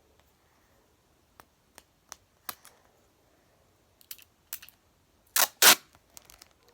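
Sticky tape and a paper squishy being handled and wrapped: a scatter of sharp clicks and crackles, sparse at first and loudest with two sharp cracks about five and a half seconds in.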